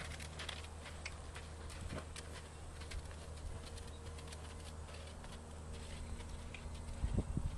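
Faint, scattered footfalls on dry, sandy dirt over a low steady hum, with a few louder thuds about seven seconds in.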